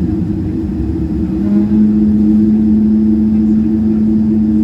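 General Electric GE90-115B turbofan on a Boeing 777-300ER spooling up during engine start, heard from inside the cabin. A steady low drone carries a hum that steps up in pitch about a second and a half in, then holds.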